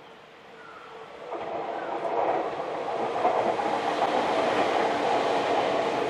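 Two Tokyu electric commuter trains, an 8500-series and a 9000-series, running side by side on parallel tracks. Their wheel and rail noise builds from about a second in as they reach and pass close by, then holds loud and steady.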